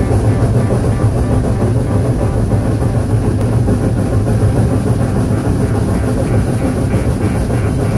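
Steam train running along the track: a steady, dense rumble from the locomotive and rolling cars.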